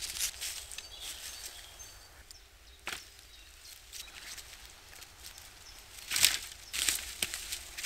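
Footsteps on woodland leaf litter and a bundle of cut wooden sticks rattling as it is carried, then a clatter of the sticks being dropped on the ground about six seconds in, the loudest sound.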